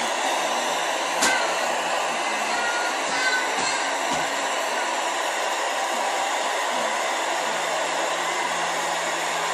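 Steady rushing noise at a constant level, with one sharp click about a second in.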